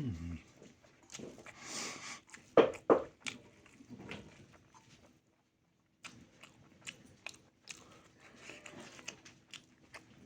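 Close-up mouth sounds of someone eating: wet chewing, lip smacks and bites, with two loud crunchy bites a little over two and a half seconds in. The sound drops out briefly about halfway through.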